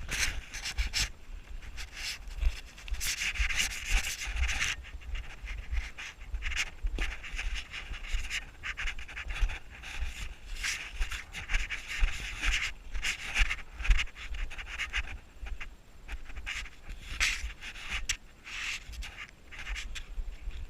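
Irregular crunching and scraping of footsteps through snow, over a low rumble of wind on the microphone.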